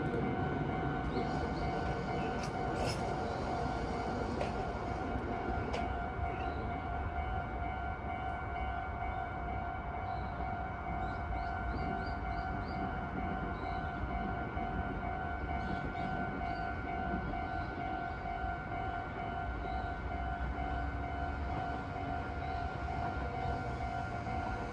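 Japanese railway level-crossing warning bell ringing on without a break, a rapidly repeating electronic ding. A passing train's rumble dies away in the first second.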